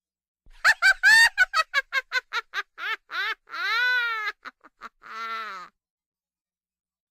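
Witch's cackling laugh sound effect: a high voice cackles in a rapid run of short 'ha' notes, about five a second, then draws out one long note that rises and falls, and ends on a rasping note.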